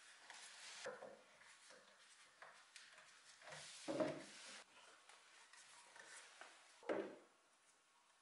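Steel bar clamps being fitted and screwed tight on a wooden armchair's backrest: faint scraping and rubbing of metal on wood, with a few short knocks of a clamp against the frame, the sharpest about four seconds in and again about seven seconds in.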